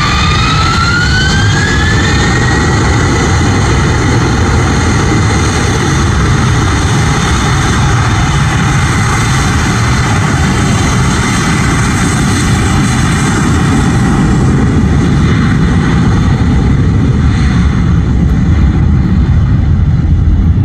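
Airbus A321-231's IAE V2500 turbofan engines at takeoff thrust during the takeoff roll. A fan whine rises in pitch over the first two or three seconds, then holds steady over a loud, dense rumble that swells a little toward the end.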